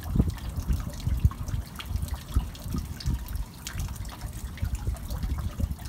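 Water running into and spilling over a stone shrine purification basin (temizuya), trickling with uneven splashes and drips.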